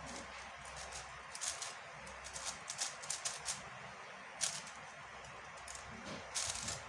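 Plastic clicking and clacking of an MF5S 5x5 speed cube being turned by hand in quick, irregular flurries of layer turns, over a steady hiss. Its owner finds this cube a bit stiff.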